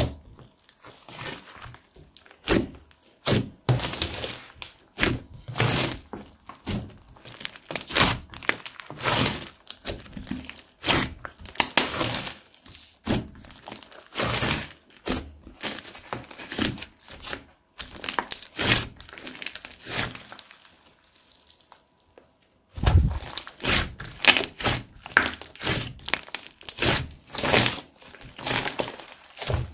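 Hands kneading, pressing and stretching a large lump of beaded clay slime, giving a quick, irregular run of sticky squishes and sharp pops. There is a short lull about two-thirds of the way through before the squishing starts again.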